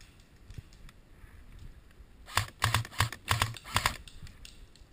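Airsoft M16 electric rifle firing a quick string of shots, about ten sharp clicks with a dull thump under each, packed into under two seconds about halfway through.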